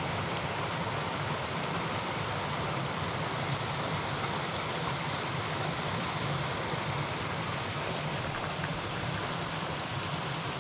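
Small mountain stream running over rocks: a steady, even rush of water.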